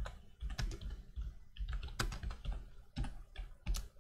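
Typing on a computer keyboard: a run of irregular keystrokes, with a few louder strokes about two seconds in and near the end.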